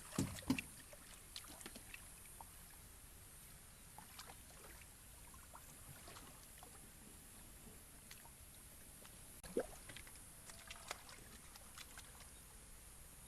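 Faint, scattered splashing and sloshing of hands working through muddy pond water while feeling for fish. A few louder splashes come at the very start and again about ten seconds in.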